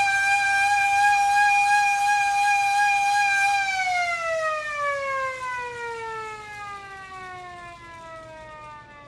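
Small hand-crank air raid siren held at a steady high wail, then winding down in a long falling glide as the cranking stops and the rotor slows.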